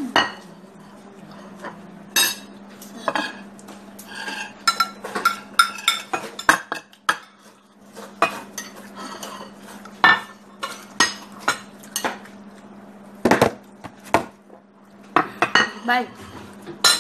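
Spoons and forks clinking and scraping against plates as people eat, in many irregular sharp clicks over a steady low hum.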